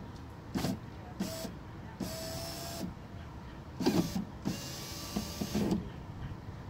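BMW E46 power window motor and zip-tie-repaired cable regulator running the door glass in two short runs, one about two seconds in and a longer one about four and a half seconds in, with a few short knocks between them. It works a little unevenly, which the owner puts down to the regulator's pin sliding between the zip ties.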